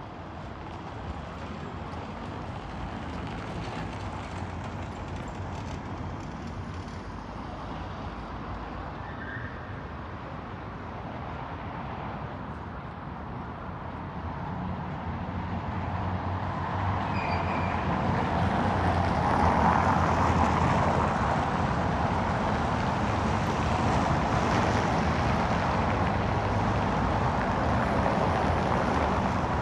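City street traffic: a steady wash of passing cars, growing louder about halfway through.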